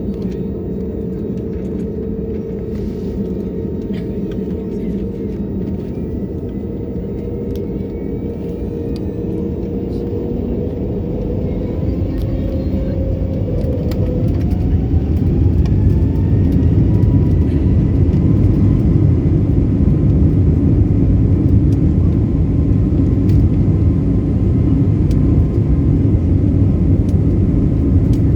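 Jet airliner's engines heard from inside the cabin: a loud, steady low rumble. About twelve seconds in, tones rise in pitch as the engines spool up to takeoff thrust, and the sound grows louder and holds steady.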